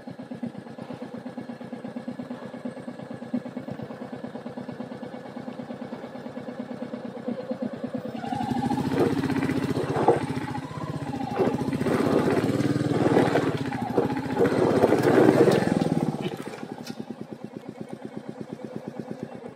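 Single-cylinder Royal Enfield motorcycle engine running with an even, rapid pulse. It gets louder under throttle from about eight seconds in and settles back to the steady pulse a few seconds before the end.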